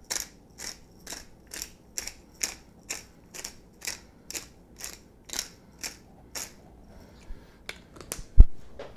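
Twist-top pepper grinder grinding rainbow peppercorns in short rhythmic turns, about two a second, stopping about two-thirds of the way through. A few clicks and a single sharp knock follow near the end.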